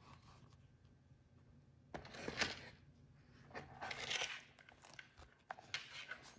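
Handling noise from a monogram canvas pouch and its flat card insert: rustling and scraping in three short bursts as they are moved by hand, starting about two seconds in after a quiet start.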